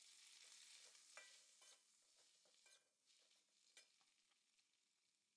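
Faint sizzling as fresh leafy greens hit a hot oiled wok, starting suddenly and dying down as they cook, with a metal slotted spatula scraping and clinking against the wok a few times while tossing them.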